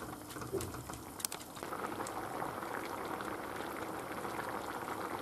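Rice cooking in boiling broth in a wide frying pan: a steady bubbling boil that settles in about a second and a half in. Before that, a few light clicks as a wooden spoon stirs the rice in the pan.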